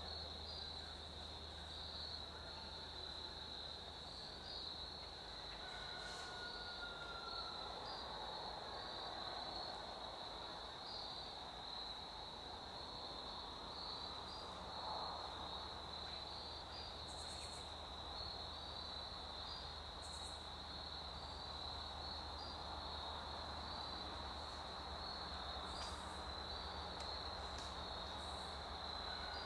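Steady high-pitched insect chorus, a continuous trill in the woods.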